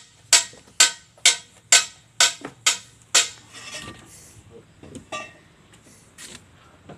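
Seven sharp, ringing knocks in a steady rhythm, about two a second, followed by a few softer, scattered knocks and clatter.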